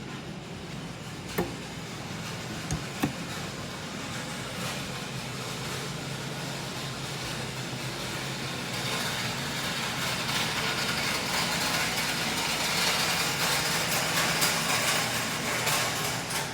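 Yamamoto DO-13FL 13 kg solvent dry-cleaning machine running: a steady motor hum under a hiss that grows louder about nine seconds in, with three sharp clicks in the first few seconds.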